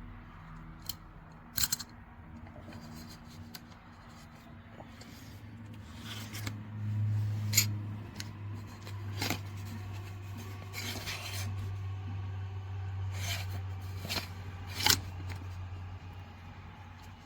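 Small metal tool parts being handled: scattered sharp clicks and light scraping, over a low steady hum from about five seconds in.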